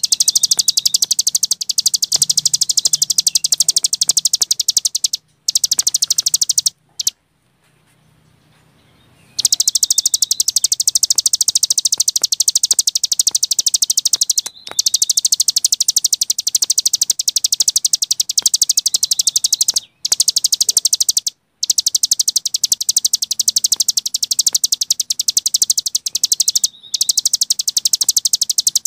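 Cici gunung songbird singing its 'ngebren' song, a fast, continuous, high-pitched trill of rapid chirps. It breaks off briefly a few times, with one silent gap of about two and a half seconds roughly a quarter of the way in.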